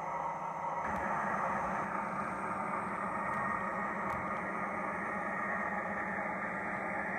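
OO-gauge model train running on a layout: a steady mechanical hum and hiss, shifting slightly about a second in.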